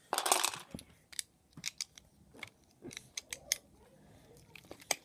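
Plastic Lego pieces handled and snapped together as train wheel sets are pressed onto a plate: a brief scraping rustle at the start, then scattered sharp clicks.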